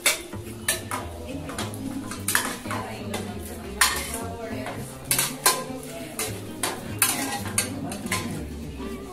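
Metal kitchen utensils clinking and scraping against a cooking pot and dishes: a run of irregular knocks and clatters, as from food being spooned or ladled out of the pot.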